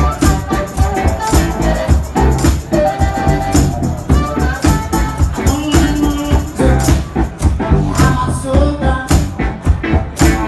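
Live band playing a blues-rock jam, led by a harmonica played into a vocal microphone over a steady drum beat with a rattling percussion beat.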